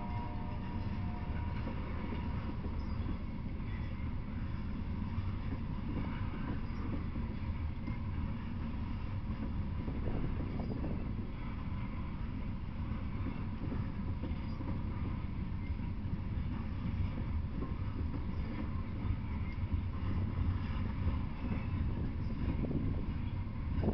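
Norfolk Southern freight train of open-top hopper cars rolling past: a steady, low rumble of wheels on the rails.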